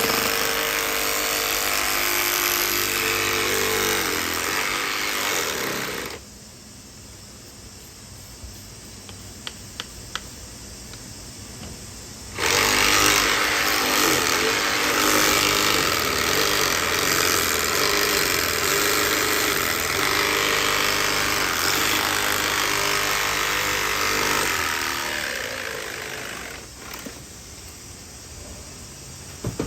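A handheld power tool running in two long stretches, with a rattling, hammering character. The first stretch stops about six seconds in. After a pause with a few light clicks, the second starts and runs about twelve seconds before winding down near the end.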